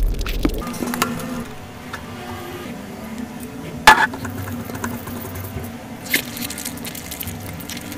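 Close-miked eating sounds: soft, wet food being squished and picked up with the fingers, with mouth sounds. A single sharp click about four seconds in is the loudest sound.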